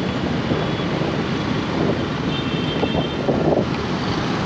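Wind rushing over the microphone and road noise while riding a scooter through traffic. There is faint, high beeping a little after two seconds in.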